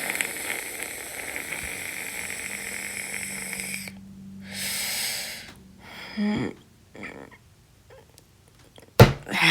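A person making a long slurping drinking sound for about four seconds that cuts off suddenly, then a shorter second slurp and a few small mouth sounds.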